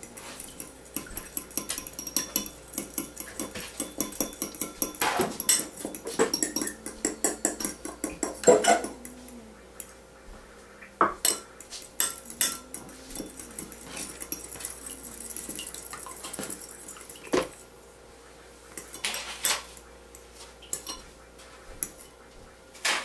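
Fork whisking egg white in a porcelain teacup, the metal tines clicking rapidly against the cup. The quick clicking runs for the first nine seconds or so, then goes on as scattered taps.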